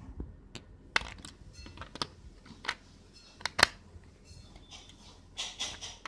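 Clicks and knocks of AA batteries being fitted into the battery compartment of a red plastic doorbell unit, with the plastic housing handled; the sharpest click comes about three and a half seconds in, and a scratchy rustle follows near the end.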